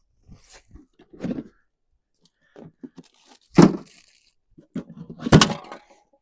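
Crunching and tearing of food packaging being opened by hand, in a few separate short bursts. The two loudest come about halfway through and near the end.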